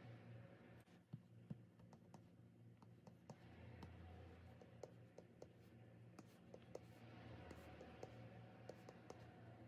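Faint, irregular light taps and clicks of an Apple Pencil tip on an iPad's glass screen as text boxes are placed and dates typed in, a few taps a second, over a faint low hum.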